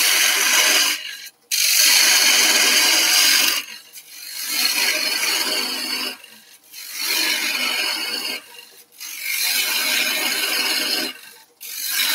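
Bowl gouge cutting air-dried sycamore spinning on a wood lathe, a hissing, scraping shear as shavings come off. It goes in repeated passes of about two seconds each, broken by short pauses as the gouge is drawn back and pushed across again.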